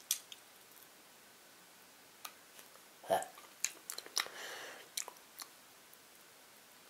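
Quiet mouth sounds of biting and chewing a chewy, spicy dried fish snack strip: a few soft, scattered clicks and smacks.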